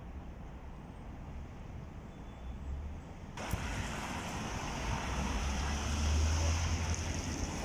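A quieter low rumble, then an abrupt cut about three and a half seconds in to louder city road traffic: cars driving past, loudest around six seconds in.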